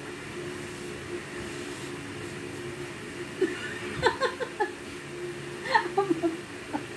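A woman laughing in short bursts, about four seconds in and again near the end, as she reacts to the heat of spicy Samyang noodles she is eating. A faint steady hum runs underneath.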